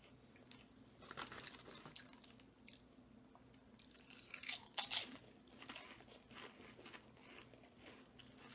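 Two people biting and chewing Lay's potato chips: scattered crisp crunches, the loudest few about four and a half to five seconds in.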